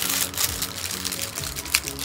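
Plastic wrapping crinkling as hands open a sealed camera bag, with a few sharper crackles about a second and a half in, over background music.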